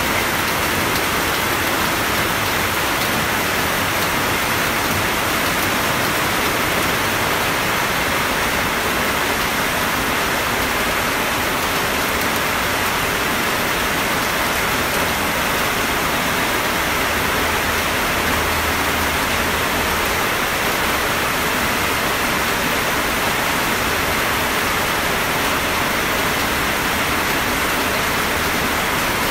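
Steady, even rain, a continuous hiss with no breaks.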